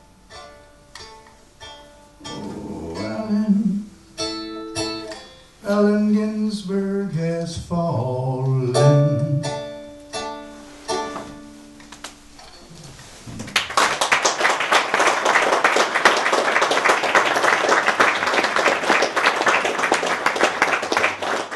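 A man singing held notes over a long-necked plucked lute, strummed and picked as the song ends. A little past halfway through the music stops and audience applause takes over.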